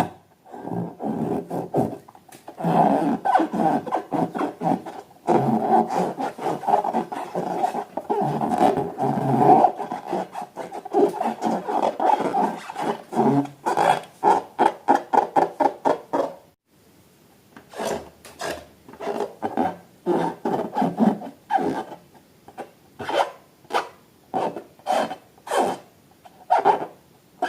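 Rubber balloon being rubbed by hand: rapid, dense rubbing strokes for about fourteen seconds, then, after a brief pause, separate strokes about two a second.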